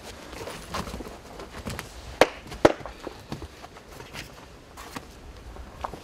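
Shuffling footsteps and handling noise as someone rummages at a doorway, with two sharp knocks a little after two seconds in and a few lighter clicks.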